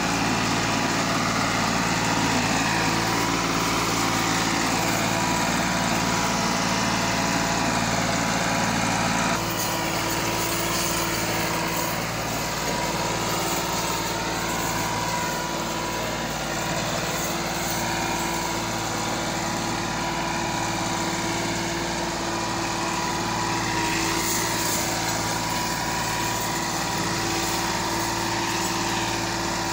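Massey Ferguson 260 tractor's three-cylinder diesel engine running steadily under heavy load as it pulls a fully loaded trolley through soft soil. The engine note shifts and drops slightly in level about a third of the way in.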